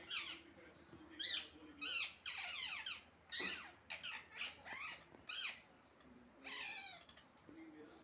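A parrot calling over and over: a dozen or so short, harsh screeches, each falling quickly in pitch.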